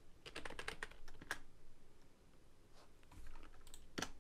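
Typing on a computer keyboard: a quick run of keystrokes, then a few scattered ones near the end.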